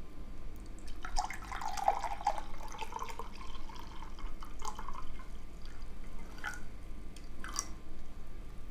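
Liquid poured from a glass bottle into a glass tumbler, splashing into the glass as it fills for about four seconds from a second in, then two short sharp sounds near the end.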